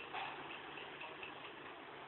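Faint, rapid, even ticking, about four a second, over the low steady hum of a slowly moving train. It fades out about halfway through, and there is one short knock just after the start.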